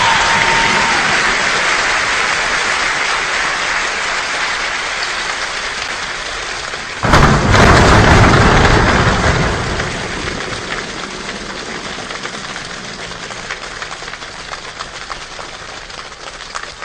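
Rain falling steadily and slowly easing off, with a sudden loud burst about seven seconds in that lasts a couple of seconds before the rain sound carries on.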